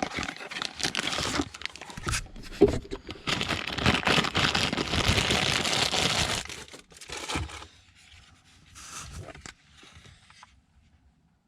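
Packaging crinkling and tearing as a new replacement power window switch is unwrapped, a dense run of crackly rustling that thins to occasional faint rustles and dies away near the end.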